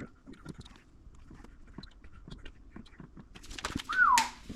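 A dog gives one short whine that falls in pitch, near the end, after a few seconds of faint taps and clicks.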